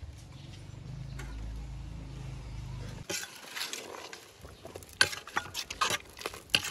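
A low steady rumble that cuts off abruptly about three seconds in. It is followed by a run of sharp clinks and knocks, like utensils and cookware being handled, the loudest about two seconds later.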